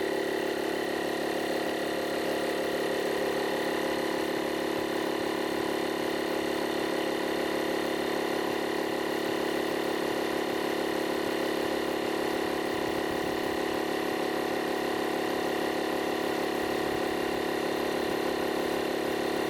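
Avid digital air compressor running steadily while inflating a car tyre toward its set pressure, a constant motor-and-pump hum.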